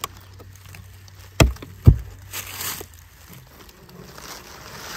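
Two dull wooden knocks, about half a second apart, from the top box of a wooden beehive being handled and set back onto the box below.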